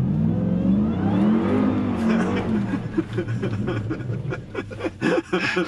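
Ram TRX's supercharged 6.2-litre Hemi V8 revving hard as the truck accelerates in sand with traction control off, spinning its wheels to throw up sand. The revs climb sharply at the start, peak and fall back within a couple of seconds, then hold lower.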